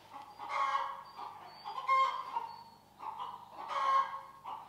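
Chickens clucking and squawking, with three loud drawn-out calls: about half a second in, about two seconds in, and a longer one from about three to four seconds in.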